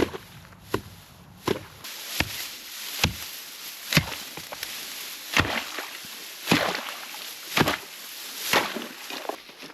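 Ice pick chopping a hole through thin creek ice: about ten sharp strikes, roughly one a second.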